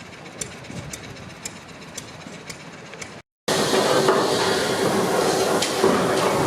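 Steam ploughing engine: light, regular ticking about twice a second, then, after a sudden cut, a loud, steady hiss of escaping steam with a faint held tone under it.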